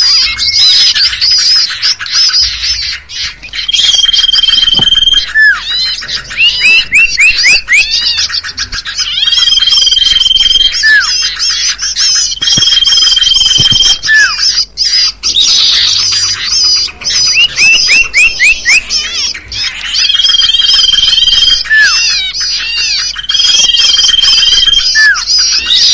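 Bird-lure recording for common ioras, with several birds calling at once. A long, steady, high whistle held a second or two comes back five times. Between the whistles come short downward-hooked notes, runs of quick rising chirps and a constant dense high chatter.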